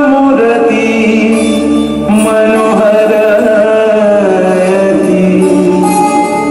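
Music with a voice singing in a chant-like style, holding long notes and moving from one held pitch to the next.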